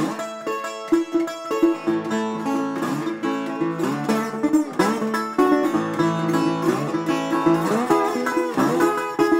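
Metal-bodied resonator guitar picked quickly in a country style and played with a slide, its notes gliding up and down into pitch again and again. Instrumental only, with no singing.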